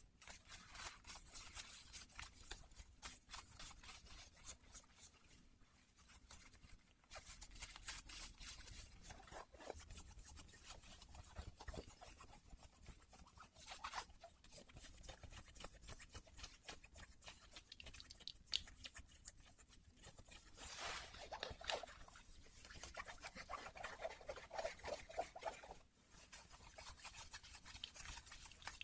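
Denim jeans handled close to the microphone: soft, continuous scratching and rubbing of the denim in quick strokes, with a denser run of scratching near the end.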